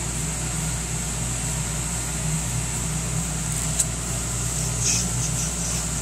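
CB radio receiver with the squelch open between transmissions: steady static hiss over a low hum, with one faint click a little before four seconds in.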